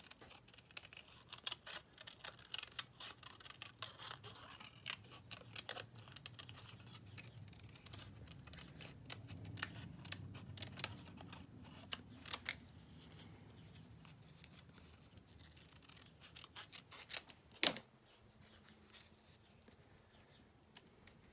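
Small craft scissors snipping through thin kraft card with paper behind it in many short, irregular cuts over the first dozen seconds or so. One sharper click comes later, followed by quieter handling of the paper.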